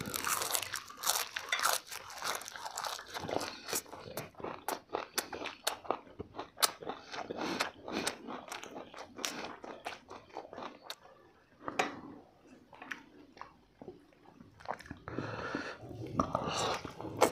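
Close-up chewing and crunching as two people bite into and eat chicken drumsticks and leafy greens: quick crunchy clicks that thin out for a couple of seconds before picking up again.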